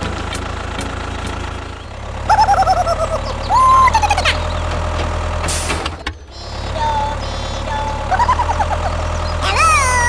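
A tractor engine idling as a steady low rumble, briefly dropping out near the middle. Squeaky, sliding, cartoon-like warbling tones are laid over it a couple of seconds in and again near the end.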